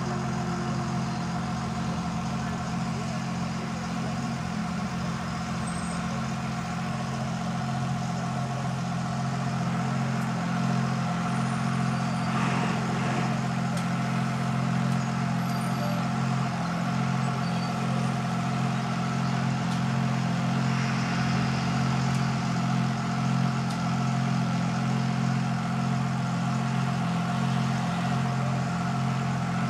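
An engine running steadily, a low hum with a few held tones that neither rises nor falls.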